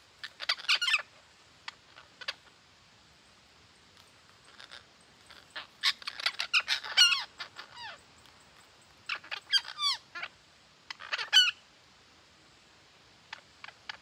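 Red-breasted parakeets giving harsh squawking calls in bouts with short pauses between them. The busiest stretch, with several calls overlapping, comes near the middle.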